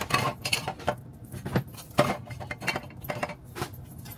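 Household items clinking and knocking together as they are handled and unpacked, in an irregular run of sharp clicks and clatters.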